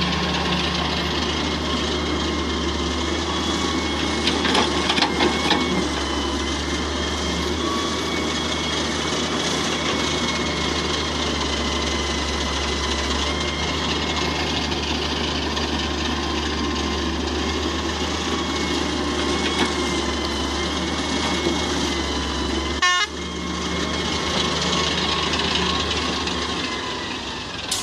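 Hitachi wheeled excavator's diesel engine running steadily while it loads soil: a constant low drone with a thin high whine held over it. The sound cuts out briefly about 23 seconds in.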